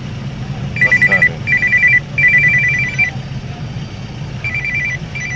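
Mobile phone ringing with an electronic ringtone: repeated bursts of a high two-note trill, pausing about three seconds in before ringing again. Under it, the low steady hum of the car's engine idling in stopped traffic.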